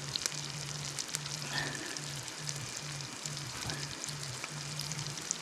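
Fish frying in hot oil: steady sizzling with small crackles and pops. Under it runs a low hum that keeps cutting in and out about twice a second.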